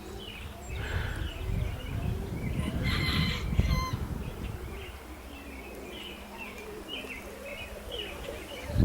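Small birds chirping in short repeated notes around a pigeon loft, with low rumbling and a brief flurry of pigeon wing flapping about three seconds in.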